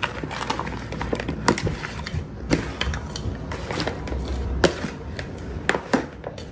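Plastic utensil knocking and scraping against a plastic mixing bowl as chunks of spiced pork are tossed, a scatter of irregular sharp clicks about one or two a second.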